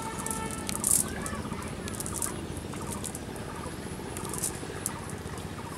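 Outdoor rural ambience: birds calling in the background, with short bursts of rustling from a cast net being handled.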